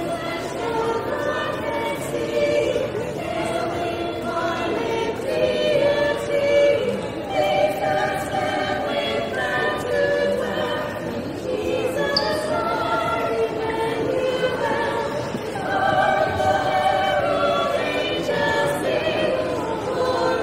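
Vocal group singing in harmony, several voices holding notes and moving to new ones every second or so, with a brief break about eleven seconds in before the singing picks up again.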